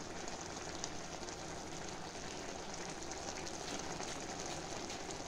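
Spinach saag sizzling steadily in a steel kadai as the water it has released cooks off, with faint crackling.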